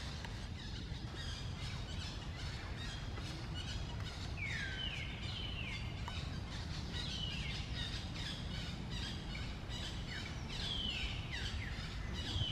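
Forest ambience: a bird calling again and again with short downward-sliding whistles, over a steady low rumble.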